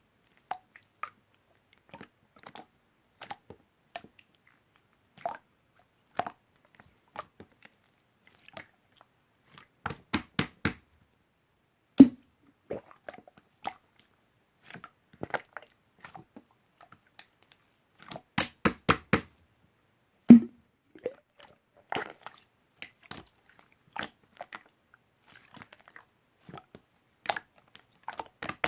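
Slime being pressed, poked and stretched by hand, giving irregular small clicks and wet pops. Two louder pops come about 12 and 20 seconds in, and a quick run of pops just before the second.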